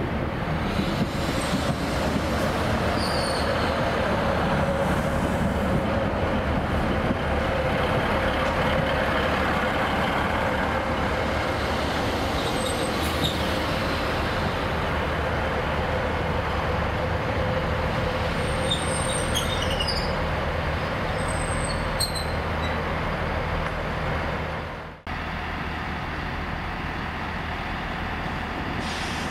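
Northern Class 156 diesel multiple unit running slowly at the platform, its diesel engines running steadily, with short high squeals from the wheels and brakes about 3 s in and again around 19 to 22 s. About 25 s in the sound cuts abruptly to a quieter, steady train hum.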